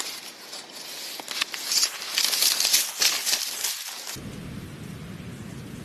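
Crackling, splashy noise with many small clicks, loudest about two to three seconds in, that cuts off abruptly about four seconds in and gives way to a steady low rumble of wind.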